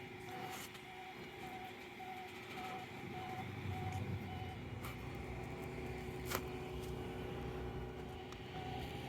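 Car driving: steady low rumble of road and engine noise. A faint short beep repeats about twice a second for the first few seconds and again near the end, and there is one sharp click about six seconds in.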